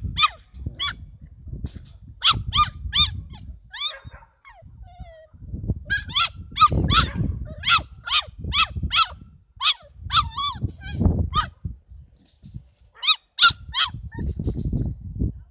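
Fox Terrier puppies yapping: clusters of rapid, short, high-pitched yips, with a lull about five seconds in, over a low rumbling noise.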